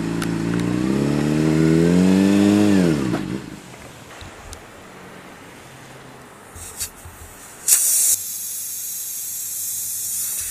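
Motorcycle engine pulling under throttle, its pitch rising a little and then falling away sharply after about three seconds as the throttle closes. It is followed by quieter road and wind noise, with a short loud rush of hiss about three-quarters through and a steady hiss after it.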